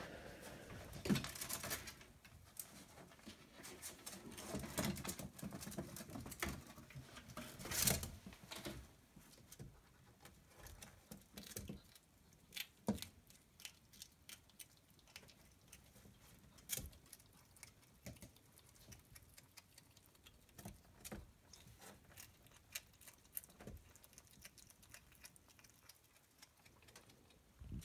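Ferrets moving about and feeding in a wooden hutch: scattered soft scratches, rustles and taps. These are busier for the first several seconds, then thin out to sparse single clicks.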